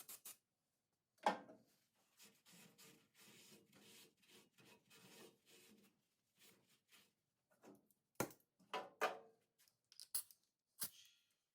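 Faint hand rubbing and scraping on a part, with scattered clicks and knocks of tools or parts being handled.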